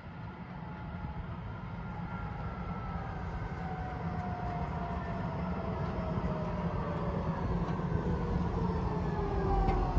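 Three-section Eurotram approaching and slowing into a tram stop. Its electric drive gives a whine of several tones that fall steadily in pitch as it brakes, over a low rumble, and it grows louder as it nears.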